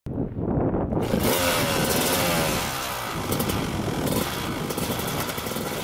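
Honda CR250 two-stroke dirt bike engine running and being revved, its pitch rising and falling. It grows louder and harsher about a second in.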